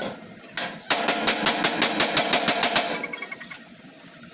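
A power tool chattering in quick, even pulses, about six a second, against the sheet-metal floor panel. It pauses briefly just after the start and stops about three seconds in.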